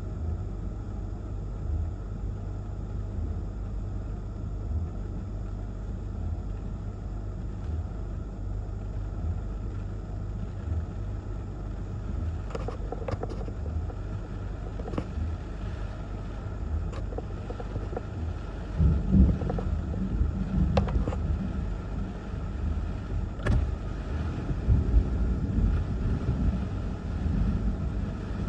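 Thunderstorm wind and rain heard from inside a car: a steady low rumble of wind buffeting, with scattered sharp ticks. Heavier gusts come from about two-thirds of the way in.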